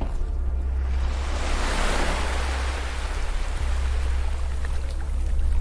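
A single ocean wave surging up the beach and washing back: the surf noise swells from about half a second in, peaks near two seconds and slowly fades. A steady low drone runs beneath it.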